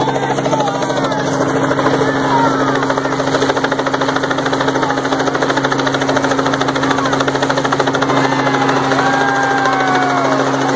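A small two-bladed helicopter hovering close overhead: steady blade chop over a constant engine hum. A few high shouts from the crowd come near the end.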